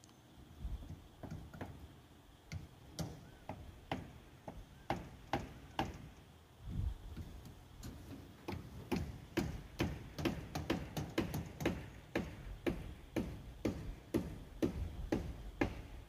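Footsteps over a steel rebar mat: sharp clicks with light knocks under them. They come irregularly at first, then steady at about two a second over the second half.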